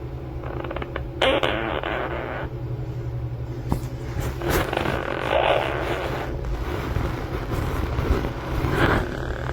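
Quaker parrot (monk parakeet) snoring in its sleep: raspy, breathy sounds in about three separate bursts of a second or two each, over a steady low hum.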